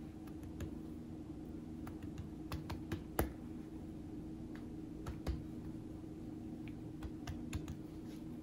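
Scattered light taps and clicks of fingertips pressing and lifting a thin dough sheet on a wooden cutting board, over a steady low hum.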